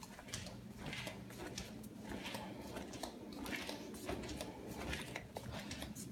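Flip-flops slapping on a hard floor as a person walks, a few light slaps a second.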